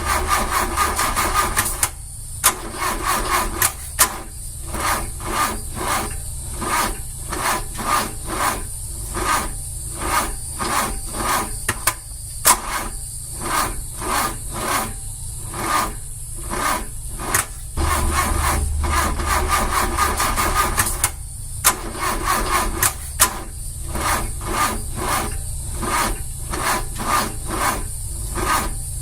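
Car starter motor cranking slowly on a weak battery. The engine turns over in a laboured rhythm of about two strokes a second and never catches. The cranking comes in two heavier stretches, at the start and again about two-thirds of the way through, with the slow uneven strokes in between.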